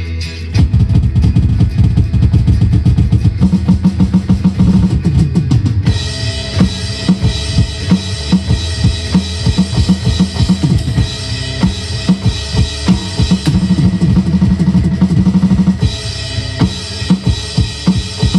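Drum kit played hard on an electronic kit: a fast run of drum and bass-drum strokes starts about half a second in, and cymbals wash over the beat from about six seconds on.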